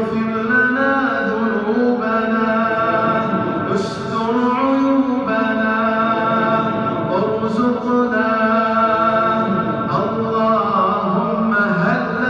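A man's voice chanting an Islamic supplication in long, held melodic notes that slide up and down, with short breaks for breath.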